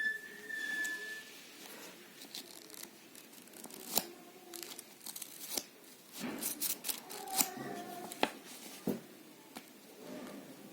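Packaging being handled and opened: irregular crinkling and tearing of wrapping, with a few sharp clicks and taps.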